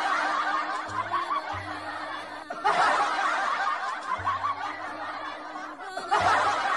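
Human snickering laughter, repeated in three stretches with abrupt breaks between them, like a looped laugh track.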